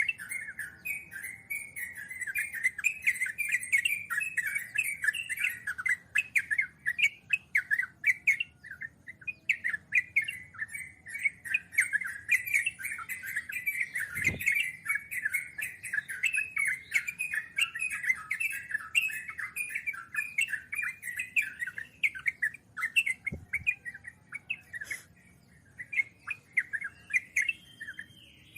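Sooty-headed bulbuls (trucukan) chattering in a long, rapid, unbroken run of calls, with thin high chips over the first half. Two brief low thuds sound, about 14 and 23 seconds in.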